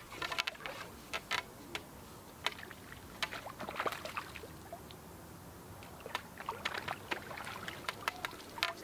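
Light water splashing with scattered, irregular small clicks and taps, typical of a float angler bringing in and handling a small fish and tackle.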